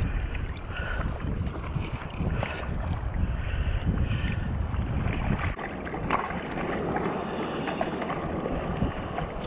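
Wind buffeting the microphone over the wash of surf, a steady rushing noise with low rumbling gusts that ease off for a few seconds past the middle.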